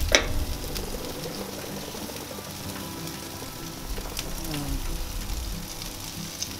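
Barbecue-sauced chicken pieces sizzling on a hot gas grill's grates, with a sharp click right at the start.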